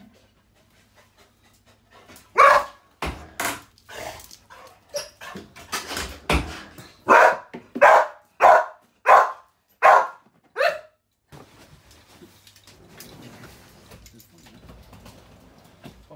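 Spaniel detection dog barking about a dozen times over some eight seconds, sharp and loud, at the spot in the toilet wall where cigarettes are concealed: its alert to the find. After the barks come only quieter rustling noises.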